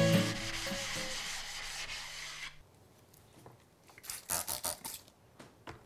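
A plane iron scrubbed back and forth on a waterstone under the fading last chord of an acoustic guitar. This stops abruptly about two and a half seconds in and is followed by a series of short hissing squirts from a trigger spray bottle wetting a sharpening stone.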